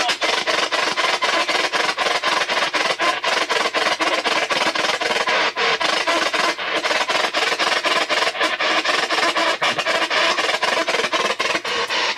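P-SB7 spirit box sweeping the AM band: continuous radio static chopped into rapid short bursts as it steps from station to station.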